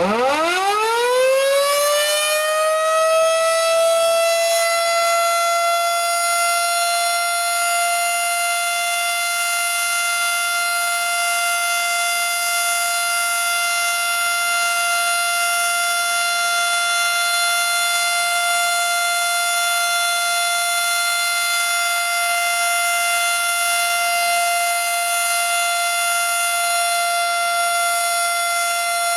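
Model 7 tornado siren starting its test: it winds up from a low growl to its full pitch over about four seconds, then holds one steady, loud wailing tone rich in overtones.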